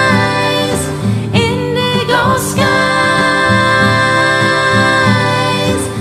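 Song with a woman's layered singing on long held notes over a steady strummed guitar accompaniment, with a short gliding vocal phrase about a second and a half in.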